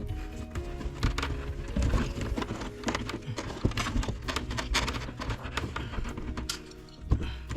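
Irregular light knocks, taps and rustling as an electrical cable is worked through the knockout hole of a wall electrical box, over steady background music.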